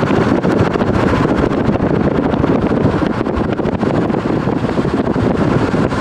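Wind buffeting the microphone of a camera held out of a moving car, over the car's steady road rumble: a loud, continuous rush with rapid crackling.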